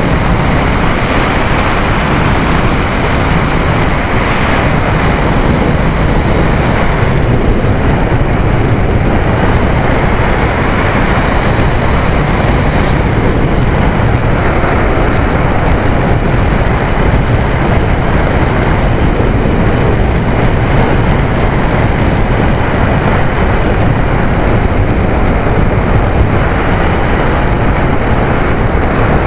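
Steady, loud rush of wind buffeting the onboard camera's microphone as the AXN RC plane flies on a windy day, with a faint high whine from its electric motor and propeller above the rush.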